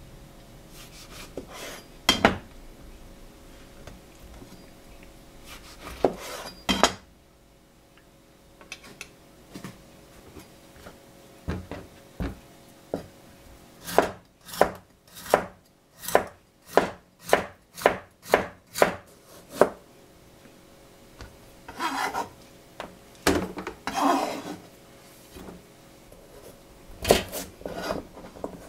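Kitchen knife chopping vegetables on a cutting board: a run of about a dozen even strokes, roughly two a second, through the middle, and another quick run near the end. Scattered knocks and rustling from handling the food and board come in between.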